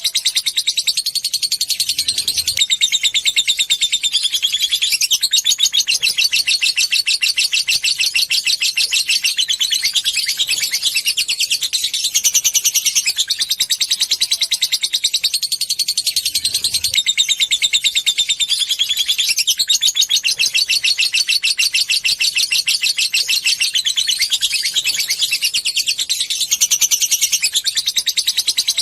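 Lovebird giving a long, unbroken chattering trill of rapid high-pitched notes, the 'ngekek panjang' that bird keepers play as a bait call to set other lovebirds singing.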